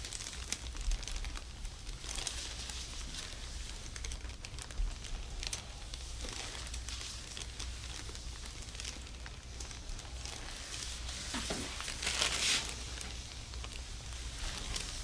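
Crinkling and rustling from hands-on work on a chiropractic treatment table, with louder swishes about 2, 5 and 12 seconds in, over a steady low hum.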